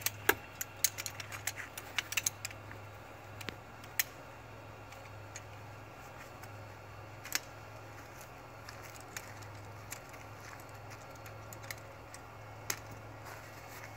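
Camping gear being handled and set out: a quick run of light clicks and rattles in the first couple of seconds, then a single click every few seconds. A low steady hum runs underneath.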